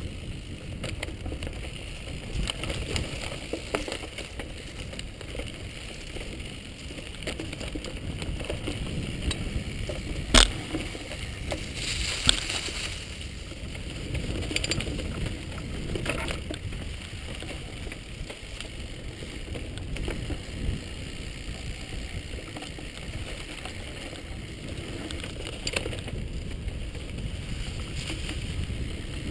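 Off-road bicycle ridden over a bumpy dirt trail: steady rumble and rattling from the tyres and frame, with many small clicks and knocks. A sharp loud knock about ten seconds in and another about two seconds later.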